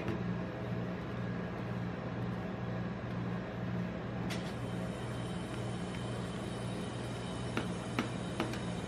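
Steady low hum of a rolled-ice-cream machine's chilled steel plate and its refrigeration unit, with a few sharp clicks of metal spatulas tapping and scraping on the plate from about four seconds in.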